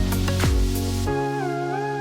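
Background music: an electronic beat of drum hits for the first half, then the drums drop out about halfway, leaving sustained chords under a gliding lead melody.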